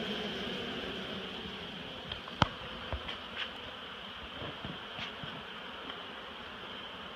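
Steady buzzing of a large mass of honeybees, with one sharp click about two and a half seconds in and a few lighter knocks after it.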